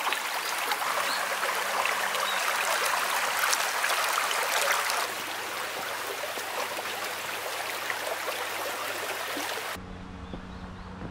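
Running water in a stream, a steady rushing that eases slightly about halfway through. Near the end it cuts to a quieter scene with a low steady hum.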